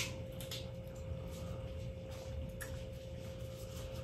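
A few faint clicks and crackles of crab-leg shell being picked apart with plastic-gloved hands, the sharpest click right at the start, over a steady faint hum.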